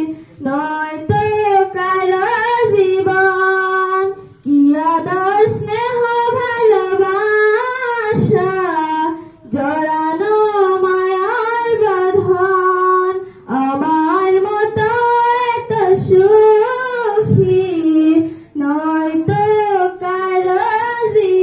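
A woman singing a Bengali song solo into a hand-held microphone, without accompaniment, in long held phrases with short breaths between them about every four to five seconds.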